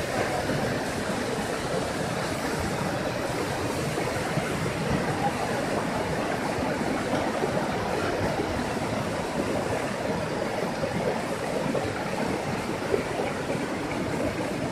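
Stream water rushing steadily over a rocky cascade, an even hiss and roar without a break. A single short knock stands out near the end.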